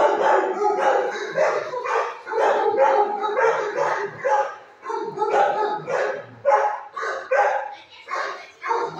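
Shelter dogs barking in quick, repeated runs with only brief pauses between barks.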